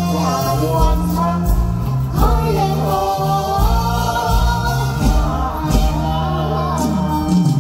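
Mor lam song performed live: a girl and a young man singing into microphones over the backing band, with a steady bass beat.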